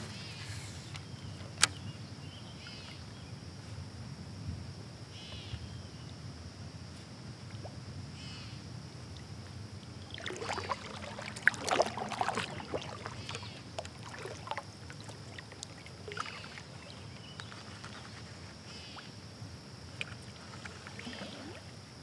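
Water lapping and splashing around a kayak on a river, with a louder spell of splashing about ten seconds in and a few sharp clicks.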